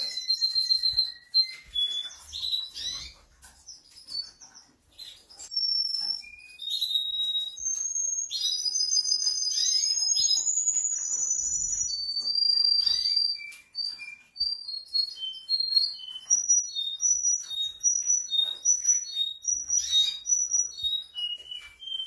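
Russian song canary singing: long whistled notes and rolling trills, with a brief lull about four seconds in, then a run of short repeated notes stepping back and forth between two pitches near the end.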